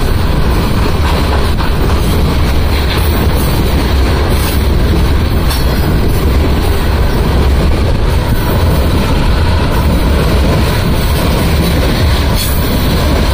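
Freight train of aggregate hopper cars rolling past close by: a steady low rumble of steel wheels on rail, with a few clicks as wheels cross rail joints.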